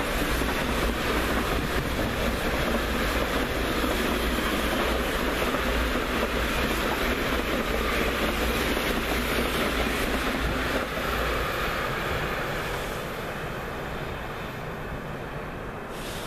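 German ICE high-speed electric train running past on the rails, a steady loud rush of wheel and rail noise that fades away from about eleven seconds in as the train recedes.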